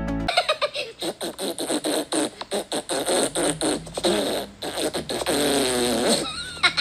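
Cartoon Minion voices: a rapid sputtering run of blown-raspberry noises, then a high-pitched wavering laugh near the end.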